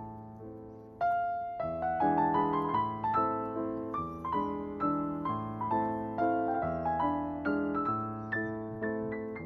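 Background piano music: a gentle melody of struck notes, each fading away, which gets louder about a second in.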